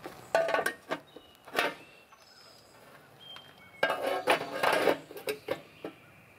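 Metal parts clanking and clattering: a few knocks near the start and about a second and a half in, then a longer run of clatter about four seconds in, with faint high insect-like tones between.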